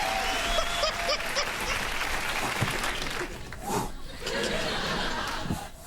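Studio audience applauding, a steady clatter of many hands that thins out briefly about halfway through.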